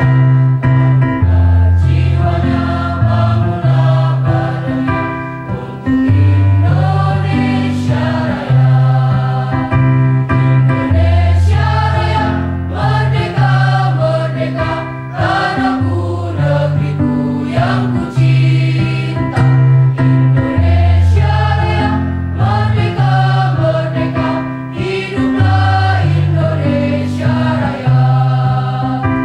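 Female choir singing in unison and harmony, over low sustained notes that change step by step beneath the voices.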